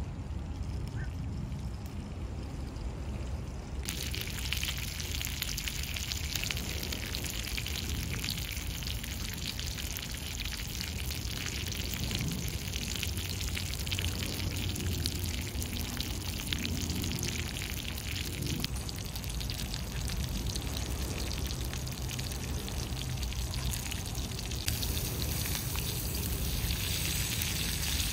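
Food sizzling on griddle pans on top of a wood-burning stove, a steady hiss with crackle that starts about four seconds in and gets louder near the end, over a low rumble.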